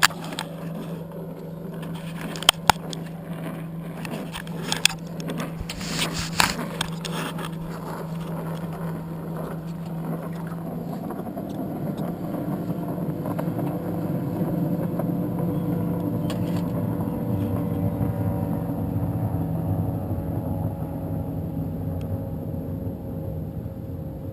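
Engine of a fast powerboat passing along the channel. A steady low hum and a few sharp clicks and knocks give way, from about halfway through, to a louder engine drone. The drone peaks and then eases off with a slightly falling pitch as the boat goes by.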